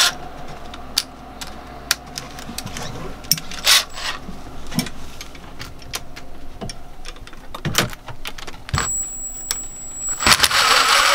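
Metal hand tools clicking and clinking in sharp, scattered taps as wrenches are worked on a diesel generator's high-pressure fuel lines, over a steady low hum. A louder burst of scraping noise comes near the end.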